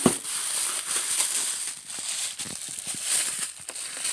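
Plastic packaging crinkling and rustling as a boxed tail light is unwrapped and handled, with a sharp click right at the start.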